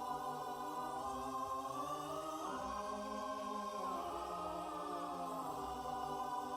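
Quiet choral music: a choir singing long held chords that change a couple of times, the closing bars of a bass-boosted song.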